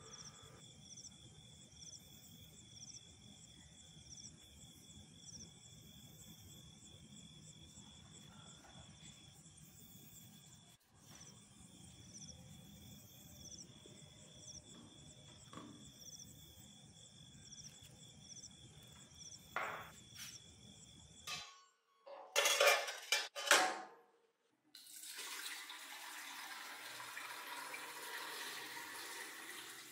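Crickets chirping faintly and steadily. About two-thirds of the way through come a few loud clatters, then near the end etching liquid is poured in a steady stream into a glass tank holding a Damascus steel blade.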